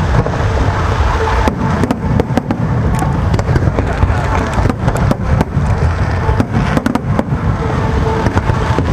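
A fireworks display with shells bursting in rapid, unbroken succession: a constant low rumble of booms, broken by many sharp cracks.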